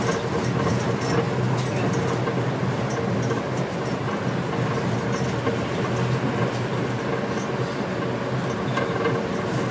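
Steady running noise inside a rubber-tyred automated guideway train cruising along its elevated guideway: an even rumble and hum with a faint steady motor tone and light scattered ticks.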